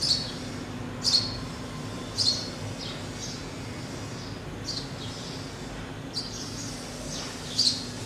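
Sparrows chirping: about seven short, sharp chirps, irregularly spaced, over a steady low background hum.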